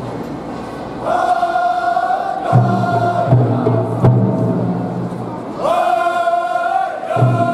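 Men chanting in call and response: one voice holds long high calls, each about a second and a half, that alternate with low chanting from a group of men. A few sharp single beats cut through between the phrases.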